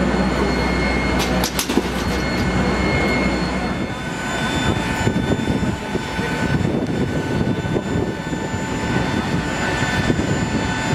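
Airport apron noise: a steady low hum with a few clicks. About four seconds in it gives way to a steady whine from the parked Boeing 737-800, its auxiliary power unit running during the turnaround while its engines are shut down.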